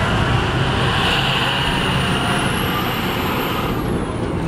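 Steady low rumble of vehicle engines running, with road traffic noise.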